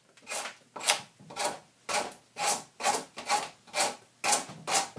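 Draw knife shaving wood off a log's end to round it into a tenon: short, even scraping strokes, about two a second.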